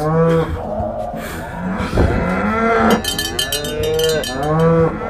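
Cattle mooing: three long, drawn-out moos, one after another.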